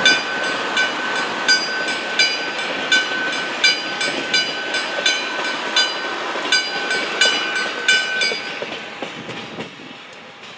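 Level crossing warning bell striking about once every 0.7 seconds over the rumble and wheel clatter of a vintage diesel railbus passing over the crossing. The bell stops about 8.5 seconds in and the train sound fades away.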